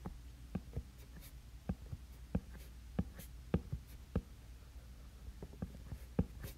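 Apple Pencil tip tapping and sliding on an iPad's glass screen during sketching: irregular short taps with a few faint scratchy strokes, over a faint low hum.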